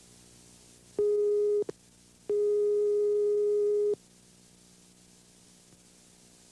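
A steady electronic tone, a single pitch of about 400 Hz, sounds twice: briefly about a second in, then after a short gap for about a second and a half, over a faint steady tape hiss.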